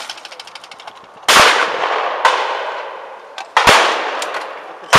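Shotgun shots at clay targets: four loud, sharp reports, each with a long fading echo. The first comes about a second and a quarter in, and the rest follow a second or so apart. Just before them there is a sharp clack and a brief rapid ticking.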